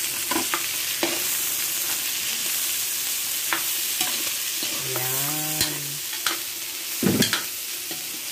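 Chayote strips and green beans sizzling in hot oil in a steel wok, a steady high hiss, while a metal spatula turns them, clacking and scraping against the pan, loudest in a quick clatter about seven seconds in.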